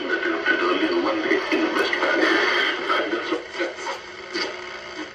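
AM broadcast sound from the small speaker of a 1964 General Electric C-409E vacuum-tube clock radio as its tuning dial is turned: snatches of station speech and music, thin and lacking bass.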